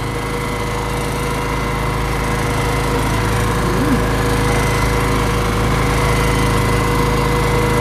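Boat engine running steadily at an even speed: a constant drone with a fixed whine over it.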